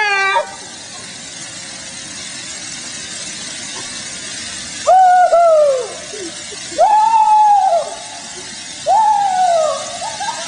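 Wordless whooping cries from partygoers, four long calls each rising then falling in pitch, about two seconds apart, starting about five seconds in, over a steady hiss.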